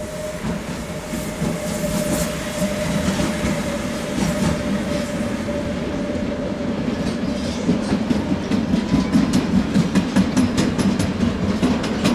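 A train passing on the track, a steady rumble with a faint hum at first, then from about halfway through its wheels clatter over the rail joints in a fast, even rhythm of about three to four clicks a second.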